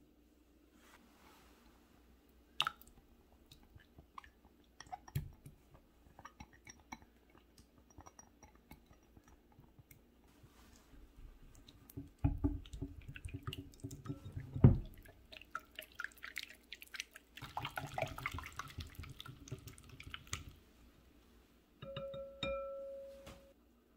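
A balloon whisk stirring yogurt and egg yolks in a glass bowl, its wires clicking and scraping against the glass in two stretches of whisking with a sharp knock between them. Earlier, scattered clicks and a single sharp knock as the eggs are handled, and near the end a short ringing clink from the glass bowl.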